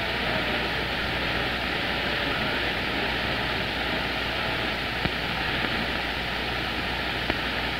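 CB radio receiver static: a steady hiss of band noise from the speaker on an open channel during skip, with no clear voice coming through.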